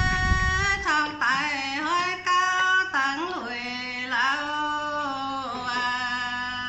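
A woman singing a Dao folk song in long held notes with sliding, wavering ornaments between them, one turn of a call-and-response duet.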